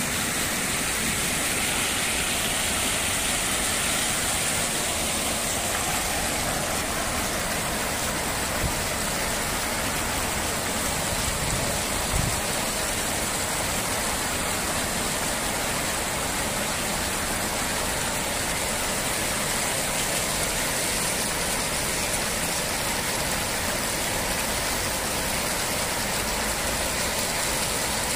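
A row of small jet fountains spraying up and falling back into a shallow pool: a steady splashing rush of water.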